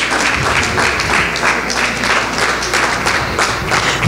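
Congregation applauding in a steady praise clap, many hands clapping at once.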